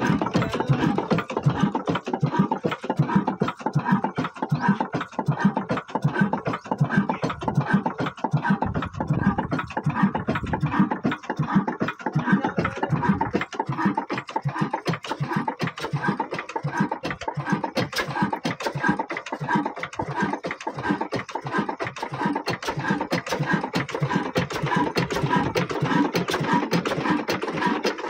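Old Hornsby horizontal single-cylinder diesel oil engine running steadily, with a fast, even knocking beat from its running gear and combustion throughout.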